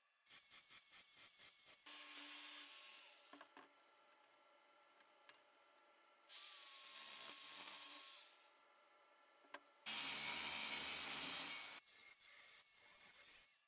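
Angle grinder with a thin cutoff disc cutting into a steel square tube in three bursts of a couple of seconds each, the last with a deeper rumble. Before the first cut comes a quick run of about eight short scratching strokes on the metal.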